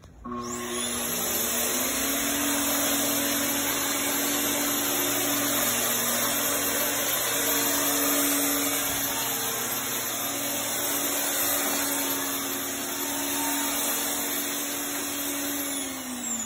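Genesis 2.6 HOCl atomizer (electric fogger) starting up, its motor whine rising in pitch over the first second or two, then running steadily with a vacuum-like rushing sound as it mists hypochlorous acid solution. Near the end the motor winds down, its pitch falling.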